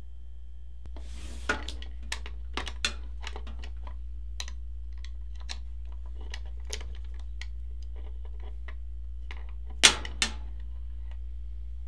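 Small metal lock and latch on a wooden chest being worked by hand: a run of light metallic clicks and rattles, ending in two sharper clicks close together, over a low steady hum.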